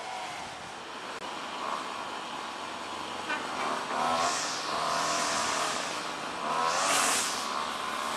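Motor vehicles passing, each swelling to a hiss and fading, over a wavering engine tone.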